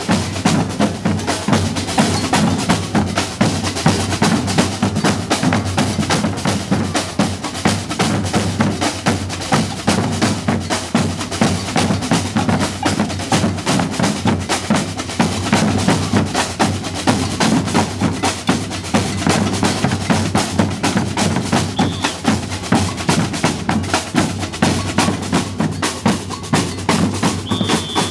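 Percussion ensemble playing a steady, busy drum groove, snare drums over bass drums. A brief high note sounds near the end.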